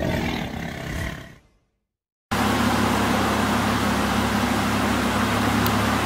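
An intro sound effect fades out, then after a moment of silence an Audi A7's engine idles steadily through its Armytrix turbo-back valved exhaust, starting about two seconds in.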